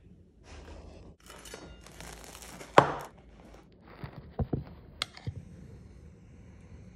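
Crisp crackling and tearing of toasted grilled-cheese bread being pulled apart, with one sharp crack nearly three seconds in. This is followed by a handful of short, sharp knocks.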